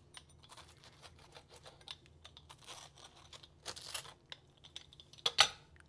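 Pizza-cutter wheel rolling through a crispy oven-baked tortilla quesadilla: a run of irregular crackling crunches as the shell breaks, with a louder crunch about five seconds in.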